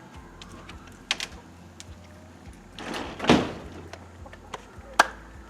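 Hinged board panel of freshly milled white pine on a chicken coop being moved: a faint click about a second in, a scraping swish about three seconds in, then a sharp knock about five seconds in.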